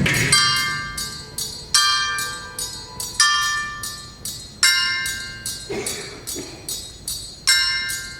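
Tuned metal percussion ringing: a cluster of bell-like tones struck together about every second and a half, each left to fade, with lighter strikes in between.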